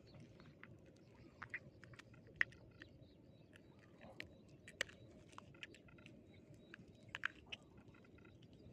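Someone chewing and eating close to the microphone: scattered soft clicks and smacks, a few louder ones among them, over a faint low background hum.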